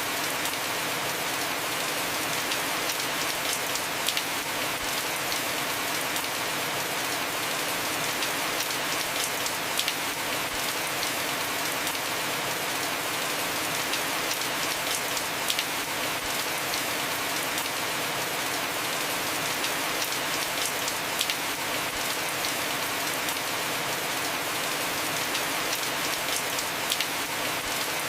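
Heavy rain falling steadily on a roof, a dense even hiss with many individual drops ticking sharply through it.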